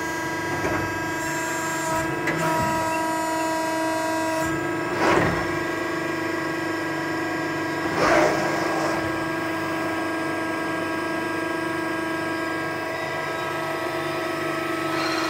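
ACCURL CNC press brake running with a steady machine hum made of several fixed tones. A higher whine joins in from about 2 to 4.5 seconds in. There are two short noisy bursts, about 5 and 8 seconds in.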